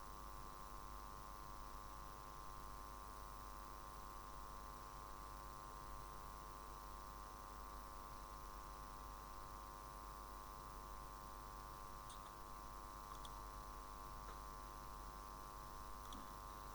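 Steady electrical hum made of several steady tones, with a few faint clicks in the last few seconds.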